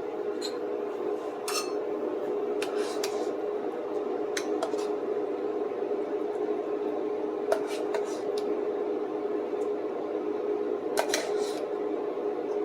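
A utensil scooping mashed potatoes from a pot onto a plate: scattered scrapes and clinks against the pot and plate, a cluster of them near the end, over a steady hum.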